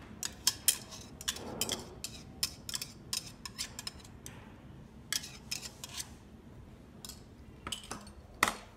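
Glass mixing bowl clinking and scraping against the rim of a nonstick frying pan while thick whipped egg batter is poured from it: irregular sharp clicks and taps in clusters, with one louder clink near the end.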